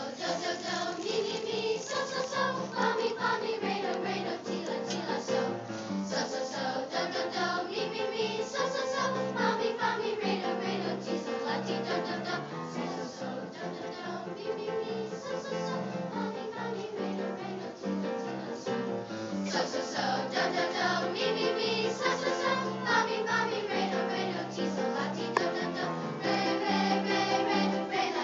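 Children's choir singing together, with steady low instrumental notes underneath.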